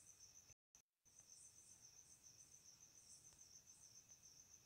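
Near silence: only a faint steady high-pitched whine with a soft pulsing, cut off completely for a moment about half a second in.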